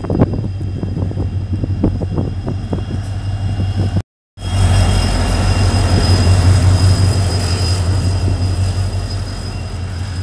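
WDP4D diesel locomotive and its passenger coaches passing close by, the engine running with a loud, steady low hum over the rumble of wheels and coaches. For the first four seconds, while the train is still further off, there are scattered clicks; then the sound cuts out for a moment and comes back louder.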